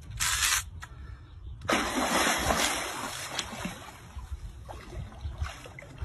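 A large hooked fish thrashing at the surface near the bank and splashing water: a short splash just after the start, then a longer, louder burst of splashing from about two seconds in that trails off.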